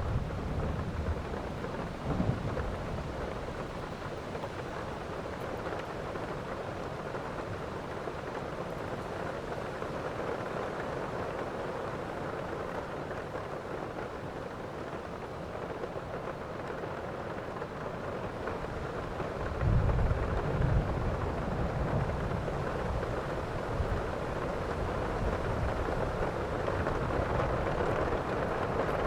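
Heavy rain falling steadily through a thunderstorm, with low thunder rumbles near the start and a louder roll of thunder about two-thirds of the way through.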